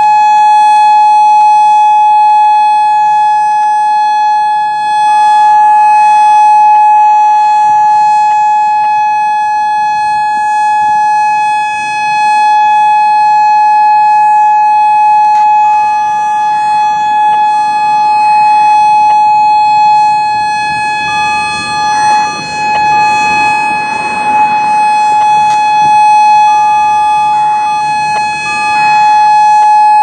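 Federal Signal Modulator 4016 electronic siren sounding a loud, steady alert tone at one unchanging pitch.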